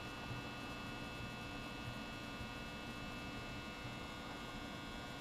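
Steady electrical hum with faint hiss, unchanging throughout; no handling sounds stand out.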